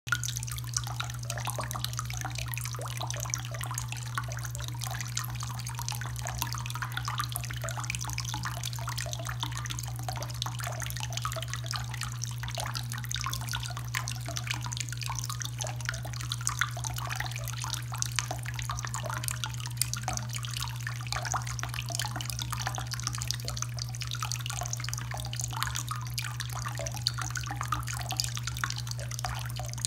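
A thin stream of water from a bathroom faucet running onto a cat's chin and splashing into the sink, a steady dense patter of drips and splashes. A constant low hum runs underneath.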